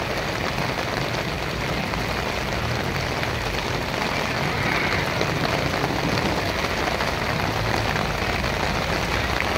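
Torrential rain pouring steadily onto paving and a flooded street, with a car's engine and tyres passing close on the wet road.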